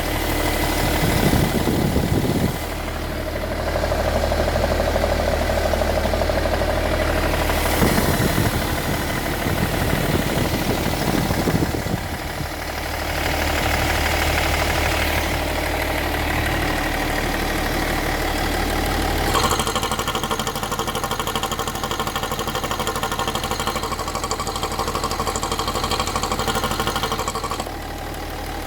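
Engine running steadily, which the owner considers to be making an abnormal noise. Its sound shifts a few times, and it changes character about two-thirds of the way through.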